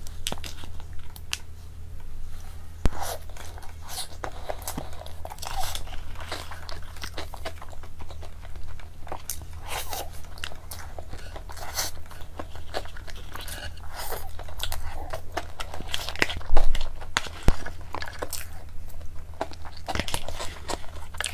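Close-miked eating: a person chewing and crunching mouthfuls of a cream cake topped with sliced almonds, with a metal spoon scooping against a paper box. Irregular small crunches and wet mouth clicks, a few louder ones about two-thirds of the way through.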